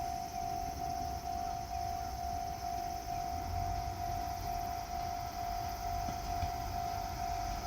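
Railway level-crossing warning bell ringing steadily at about two strokes a second on one pitch, over a low rumble. It signals that a train is approaching the crossing.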